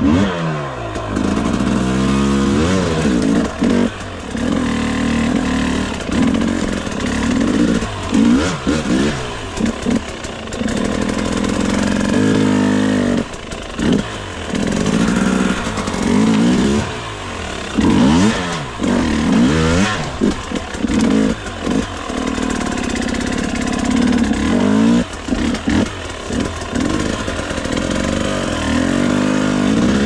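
Enduro motorcycle engine revving up and down over and over in short throttle bursts, its pitch rising and falling every second or two, as the bike is ridden slowly through a rocky creek bed.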